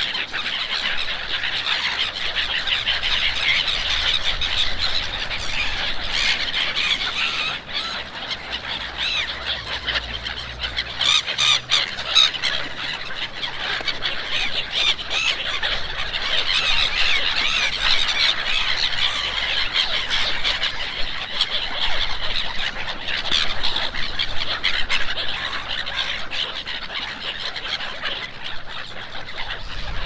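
A large feeding flock of gulls calling all at once: a dense, continuous mass of overlapping squealing calls, with a burst of sharper calls about eleven seconds in.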